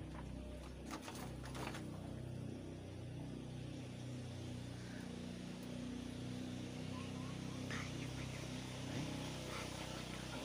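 Asian honeybees (Apis cerana) buzzing in a steady, wavering hum around an opened wooden box hive being harvested, with a few sharp clicks of handling about a second in.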